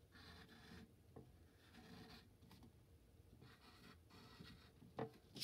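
Graphite pencil drawing on paper: faint scratching in three short passes of strokes, with a couple of brief clicks near the end.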